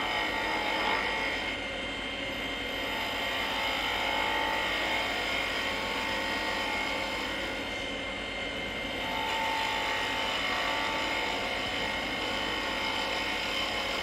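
Wood lathe running with a steady motor hum and whine while a spindle roughing gouge is pushed in at an angle to make light cuts in the spinning spindle.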